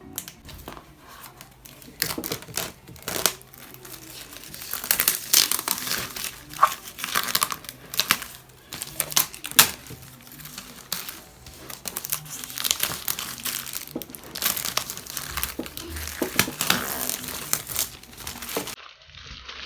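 Laptop packaging being handled and unwrapped: a dense, irregular crinkling with many small crackles, cutting off abruptly near the end.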